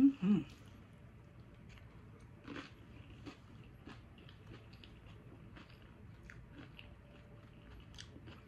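A person chewing a chip loaded with burrito-bowl toppings: faint crunches and mouth clicks scattered throughout. A short two-part hum comes at the very start and is the loudest sound.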